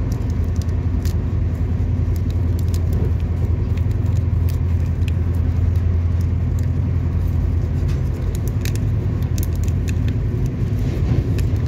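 Steady low rumble of a Shatabdi Express train running, heard inside the passenger coach. Over it come light irregular clicks and crinkles as a paper sachet is handled and emptied into a cup.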